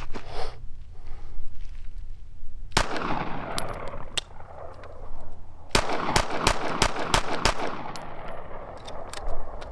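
Pistol gunshots, each trailing an echo: a single shot about three seconds in, another a second later, then a quick string of about half a dozen shots from about six seconds in, with a few more near the end.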